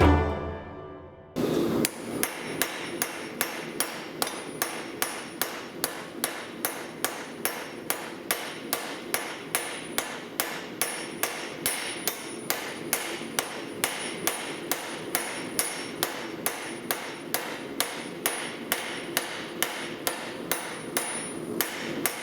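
Hammer striking steel on an anvil in a steady rhythm, a little over two blows a second, each blow with a bright metallic ring: drawing out a round bar into a flat rectangle. A steady rushing noise runs underneath the strikes.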